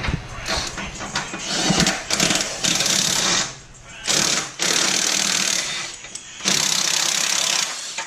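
A power tool running in three short bursts of about a second each, with clanks before them: the work of undoing bolts while pulling the engine.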